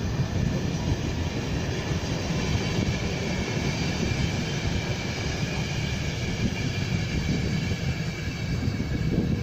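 A train running past on the line: a steady rumble of wheels on the rails, with faint high tones above it.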